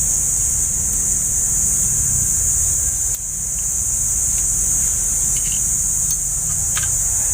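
A steady high hiss over a low rumble, with a few faint short clicks in the second half from hand tools at the valve adjusting screws of an Isuzu 12PE engine.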